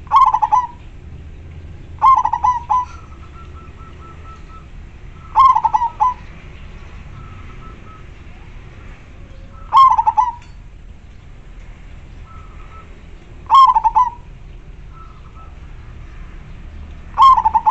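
Zebra dove (perkutut) cooing: six short, loud, clear phrases of a few quick notes each, spaced a few seconds apart.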